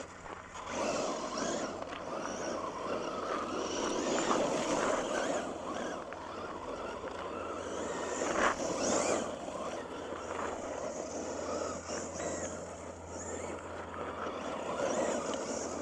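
Traxxas Slash 2WD VXL radio-controlled truck drifting on loose gravel: its motor revving up and down with the throttle while the tyres scrabble and slide over the stones.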